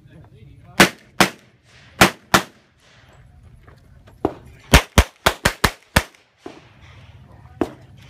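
Glock 34 9mm pistol fired in quick pairs. After a brief pause comes a fast string of about six shots, with a few fainter shots between the strings.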